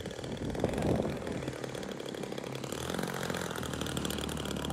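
Engine of a 40% scale L4 Grasshopper radio-controlled model plane running as the plane flies low past, its note filling in from about three seconds in.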